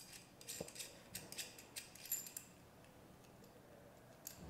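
Faint clicks and ticks of the e-bike controller's wiring connectors being handled as the battery connector is unplugged, several in the first two seconds and a light knock near the end.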